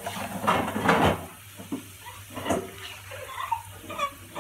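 A metal slotted spoon stirring, scraping and clattering against a nonstick pan of frying bitter gourd pieces, with the oil sizzling, then scooping the fried pieces out. The scraping is loudest in the first second, with lighter scrapes and clinks after.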